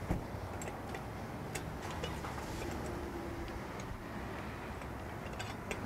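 A few faint clicks and taps of a hand working a metal wall-mounted outdoor water spigot and its brass hose coupling as the spigot is turned on, over a low steady background rumble.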